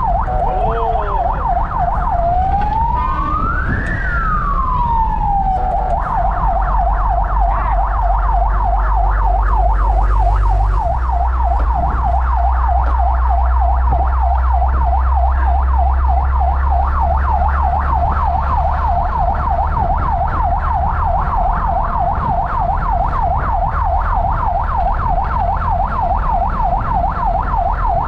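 Fire truck's electronic siren heard from inside the cab: one slow wail rising and falling at first, then about four seconds in it switches to a fast, steady yelp, with the truck's engine rumbling underneath.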